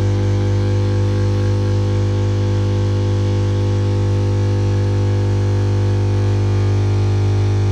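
Bosch Classixx 1400 Express washing machine making a loud, steady buzzing drone, typical of the drain pump. It is caused by a twenty-pence coin and fluff caught in the drain at the bottom right-hand corner.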